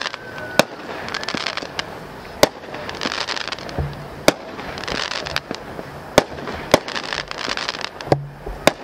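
Consumer firework cake firing, with about six sharp reports roughly every two seconds as shots launch and break, and hiss between them. Hip-hop music with deep bass comes in underneath about four seconds in.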